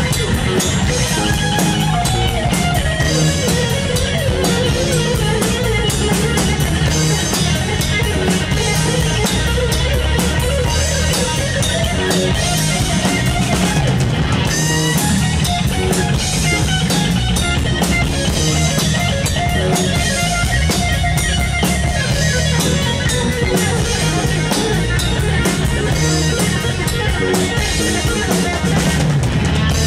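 Live rock band playing: a Stratocaster-style electric guitar plays a lead line over drums and bass.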